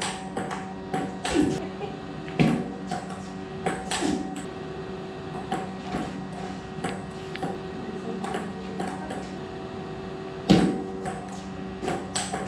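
Table tennis rally: a celluloid ball clicking off paddles and bouncing on the table, irregular sharp clicks with a few louder thumps, the loudest about ten seconds in. A steady hum runs underneath.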